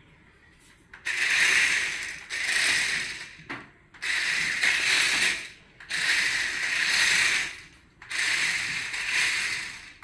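Toy stunt RC car's electric motors and gears whirring in about five spurts of one to two seconds, with short breaks between, as it is driven across a marble floor.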